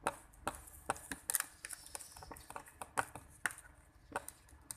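Thick, sticky glue slime being worked in a bowl, giving an irregular run of sharp little clicks and pops, about a dozen.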